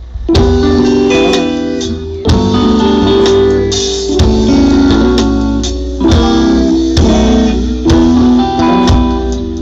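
Reggae band playing a song live: guitars, bass and drums come in together just after the start and carry on with a steady beat.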